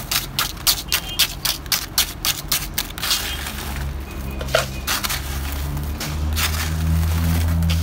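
Ice being scooped from an insulated ice bucket into a plastic cup, the cubes clattering and crunching in quick sharp clicks, thickest over the first three seconds. A low steady rumble builds through the second half.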